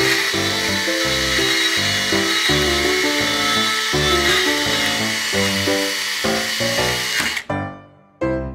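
Miniature chainsaw running and cutting through a small wooden log, a steady high whine with background music under it. The saw sound cuts off suddenly about seven seconds in, followed by a brief gap before the music returns.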